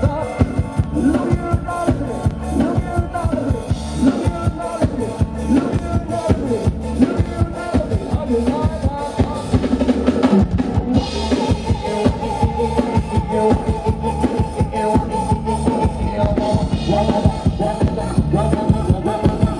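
Live band music played through a rot hae sound truck's loudspeaker rig: a steady drum-kit beat with bass drum and snare under bass guitar and electric keyboard.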